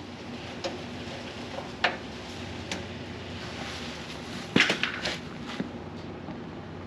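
Light clicks and knocks from handling a Mr. Heater Buddy portable propane heater just after it is lit, with a quick cluster of them about four and a half seconds in, over a steady faint hiss.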